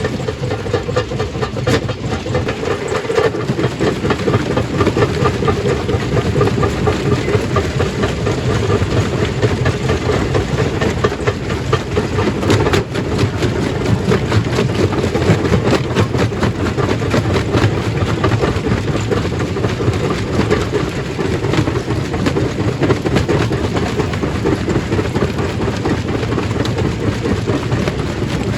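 Stone crushing machine running steadily, rock rattling and grinding through it.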